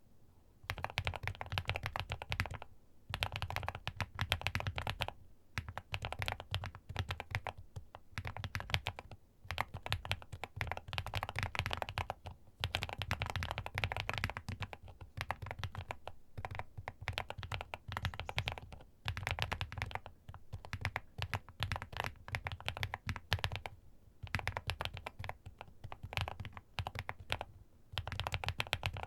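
Typing on a Weikav Stars75s mechanical keyboard: fast runs of keystrokes with a deep thock under each click, coming in bursts of a second or two with brief pauses between them.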